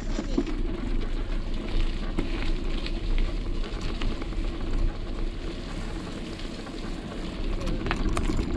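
Mountain bike riding over a muddy gravel trail: the tyres crackle over dirt and small stones, with wind rumbling on the microphone and a few sharp knocks near the end.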